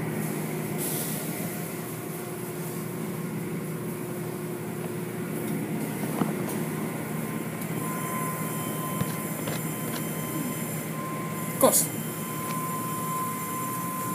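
Automatic car wash tunnel machinery running: a steady mechanical hum with spraying water and soft-cloth wash curtains working over a car. A steady high tone joins about eight seconds in, and a short falling squeal comes near the end.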